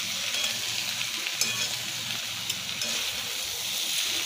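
Potato, cauliflower and soya chunks sizzling as they fry in a pan, stirred with a spatula that scrapes the pan and clicks against it now and then.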